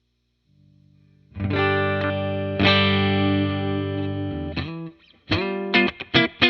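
Electric guitar played through a Dr. Z Maz 38 Senior Reverb 2x12 combo amp. Two chords ring out and sustain for a few seconds, then a quick run of short, choppy chords starts near the end.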